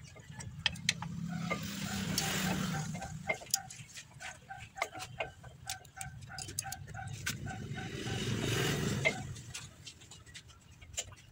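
Light metallic clicks and taps as brake shoe parts and springs are handled and fitted on a drum-brake backing plate. Behind them, a short repeated tone about three times a second, and two swells of a passing vehicle rising and falling.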